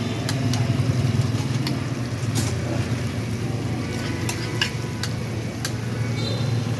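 Battered banana pieces deep-frying in woks of hot oil, a steady sizzle, with several sharp metal clinks of a wire frying basket against the wok and rack. Under it runs a steady low hum.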